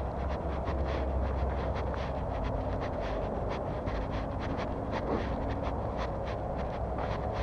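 Street ambience on a walk: footsteps crunching or scuffing several times a second over a steady low rumble, with a faint distant engine hum in the middle.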